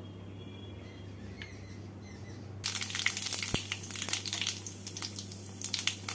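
Cumin seeds and two dried red chillies sizzling and crackling in hot oil in a steel kadai: the tempering (phoron) frying. The crackle starts suddenly about two and a half seconds in, thick at first, then thinning out.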